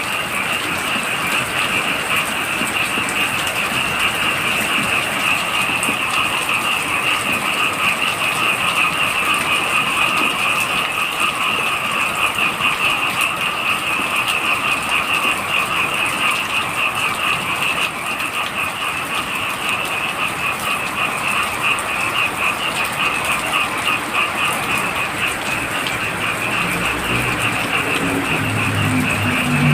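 Heavy rain falling steadily, with a dense chorus of frogs calling in fast, pulsing trills. Near the end, a low engine sound of a motor vehicle comes in.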